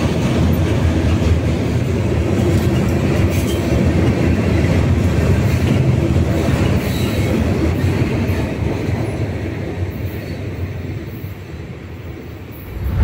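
Freight train rolling past on the rails, a steady rumble of wheels and cars that dies away over the last few seconds as the end of the train goes by.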